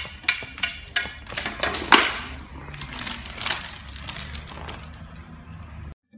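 Irregular clicks and knocks of a pug's paws and a plastic food tub and lid on a glass tabletop, about two or three a second, with one louder knock about two seconds in.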